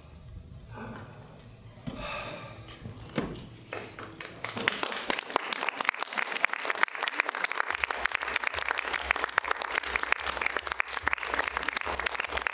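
Theatre audience applauding at the end of a show. The clapping breaks out about four and a half seconds in, after a quieter stretch, and then goes on steadily.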